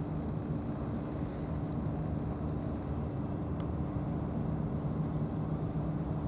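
Ship's engine running steadily, heard on board: a constant low hum with two held low tones over a wash of noise.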